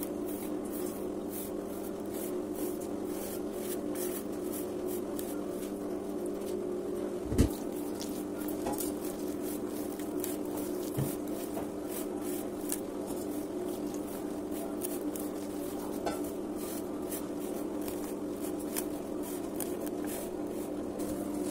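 Hands mixing and crumbling wheat flour with chopped fenugreek leaves in a bowl for paratha dough, with light scrapes and clicks against the bowl and one sharp knock about seven seconds in. A steady low hum runs underneath.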